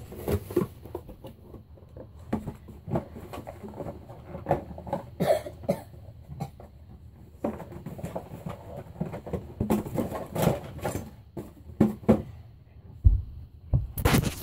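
Irregular knocks, taps and rustling of someone moving about and handling things close to the microphone.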